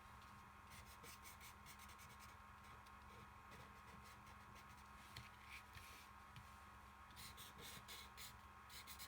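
Faint scratching strokes of a drawing tool on cardboard as small stars are drawn, coming in short clusters.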